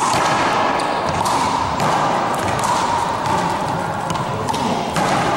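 One-wall handball rally: a small rubber ball slapped by hand, smacking the wall and bouncing on a gym floor in a string of sharp hits.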